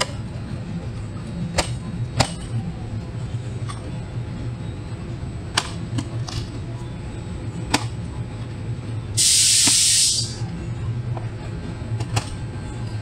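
Hard plastic grille tabs clicking sharply now and then as the grille is pushed down into the plastic bumper cover, over a steady low hum. About nine seconds in, a loud hiss lasting about a second.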